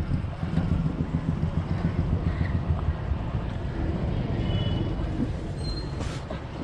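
Steady low rumble of vehicle and street noise picked up by a helmet-mounted camera's microphone, with a few faint higher tones and clicks over it.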